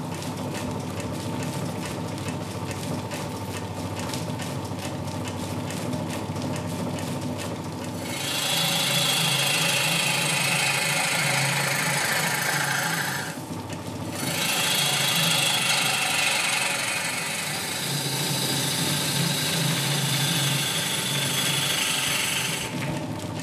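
Wood lathe spinning a large beech-wood block while a hand-held turning chisel cuts it: a steady motor hum, then a loud dry rasping hiss of the cut that starts about a third of the way in, breaks off for a moment and resumes. Its pitch slides down as each cut goes on, and it stops just before the end.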